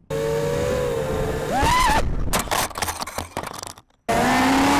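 Racing quadcopter's brushless motors and propellers whining over a steady hiss. The whine rises sharply in pitch as the throttle is punched, then comes a rapid run of knocks and clatter as the drone crashes and tumbles. After a brief gap the motors whine again at a lower pitch over loud hiss.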